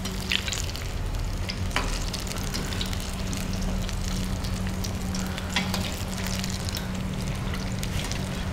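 Battered vegetable pieces deep-frying in hot oil in a stainless steel pan: a steady sizzle, with a metal spoon clicking against the pan a few times as the pieces are stirred.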